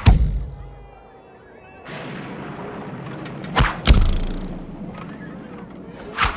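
Horror sound-effect impacts: three heavy hits about three seconds apart. Each is a sharp crack followed at once by a deep thud. A steady rough noise runs beneath them from about two seconds in.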